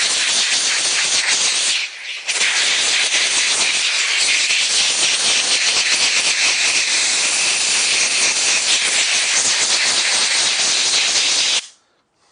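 Compressed-air hose blowing a steady, loud hiss over freshly shrunk heat-shrink tubing on a cable join. The air stops briefly about two seconds in, then resumes and cuts off sharply near the end.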